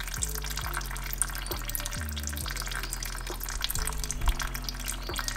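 Brake fluid with air bubbles running out of an opened caliper bleeder screw into a clear hose under a power bleeder's pressure, a faint crackling trickle; the bubbles mean air is still being purged from the line. Soft background music with low bass notes underneath.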